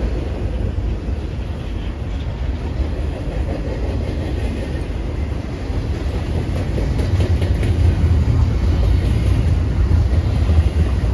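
A train rolling past with a steady low rumble of wheels on rail, growing a little louder about two-thirds of the way through.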